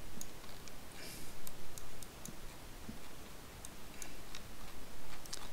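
Computer mouse clicks, a few at a time and irregularly spaced, light and sharp, over a faint steady hiss.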